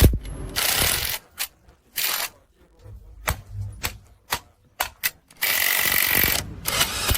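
Irregular mechanical clicking and short rasping bursts, with one longer rasp about five and a half seconds in.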